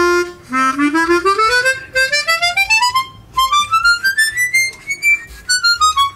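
Hohner Chrometta 12, a 12-hole chromatic harmonica, being played: a short held note, then two quick rising runs of notes and a falling run near the end.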